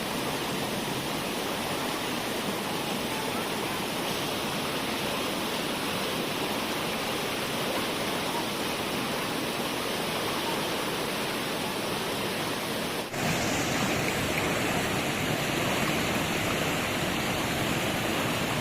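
Steady rush of water from a waterfall and its stream. About thirteen seconds in it breaks off sharply and resumes a little louder.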